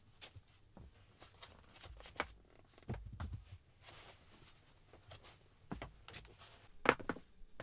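Fleece blanket rustling and soft knocks and thumps on a wooden plank bunk as a bed is made up, with the sharpest knock near the end.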